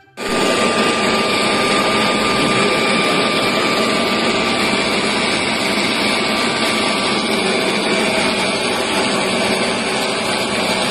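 Handheld leaf blower running at full power, a loud, even rush of air with a faint steady whine. It starts abruptly and runs without a break.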